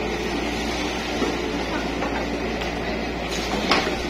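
Yanmar mini excavator's diesel engine running steadily as the arm works the bucket in the brush, with a sharp knock about a second in and a louder one near the end.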